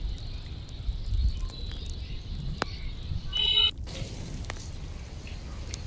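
Outdoor ambience: wind rumbling on the microphone with scattered light clicks, and a short high bird call about three and a half seconds in that ends abruptly.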